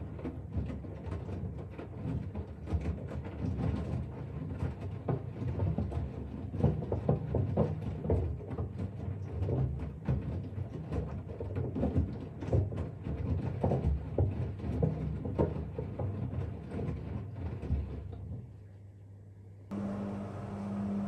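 Electrolux top-loading washing machine in its wash phase: the drum turns with wet towels sloshing and thudding in an irregular run of low knocks over a rumble. Near the end the sound drops for a moment, then gives way to a steady, pulsing hum of the machine's motor at a later stage of the cycle.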